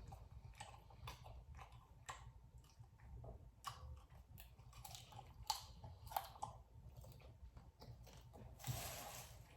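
A person chewing and biting into birria tacos close to the microphone, with faint, scattered wet mouth clicks and smacks, and a brief burst of noise near the end.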